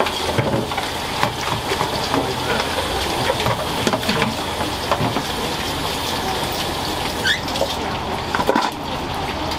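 Soba shop kitchen at work: water running steadily, as from a tap or a filling pot, with scattered clinks and knocks of bowls and utensils.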